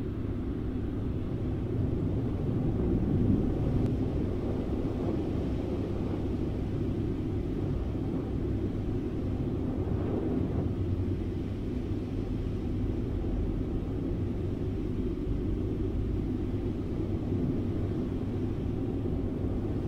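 Steady low rumble of rushing air, a flight sound effect, with no rise or fall.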